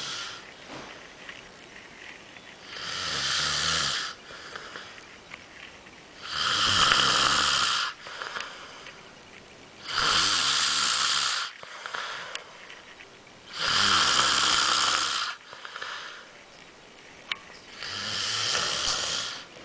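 Loud, regular snoring: five drawn-out snores, one about every three and a half to four seconds, with quiet breathing gaps between.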